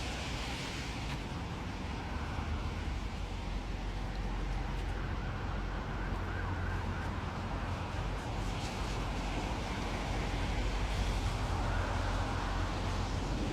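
Steady low rumble of road traffic, with a faint siren wailing in the middle and again near the end.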